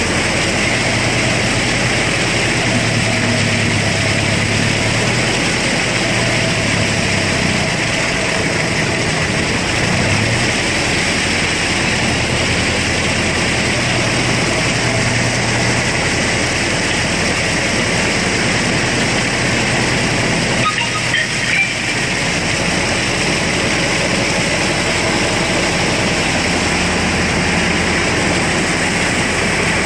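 Mahindra Arjun Novo 605 DI-i 4WD tractor's diesel engine running steadily under load as it drives a PTO rotavator through wet paddy mud, the engine note wavering slightly in pitch. The rotavator blades churn and splash the wet soil.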